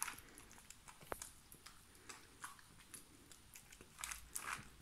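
A small dog licking and chewing peanut butter and biscuit bits off a plastic bag: faint, irregular wet licks and smacks.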